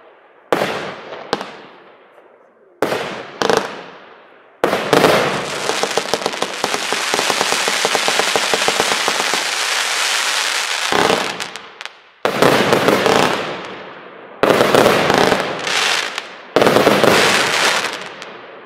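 30 mm compound firework cake (NICO Bling Bling, 146 shots) firing: a few separate loud bangs with fading tails, then about six seconds of rapid, near-continuous firing as a fan salvo of comets goes up, then four more loud bangs, each trailing off.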